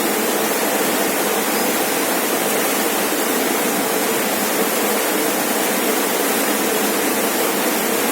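Rainforest waterfall: a steady, even rush of falling water, unchanging throughout.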